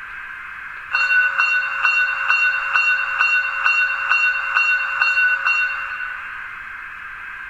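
Locomotive bell sound (function F17) from the Zimo sound decoder in a Roco H0 model of a DB class 50 steam locomotive, played through the model's small loudspeaker. About eleven even bell strikes come at roughly two a second, starting about a second in and ringing out after the last one, over a faint steady hiss.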